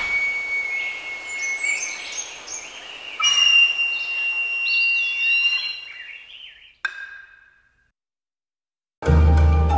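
Bird calls, with long held whistle-like notes and short gliding chirps, fade out to silence about eight seconds in. Plucked string music starts suddenly near the end.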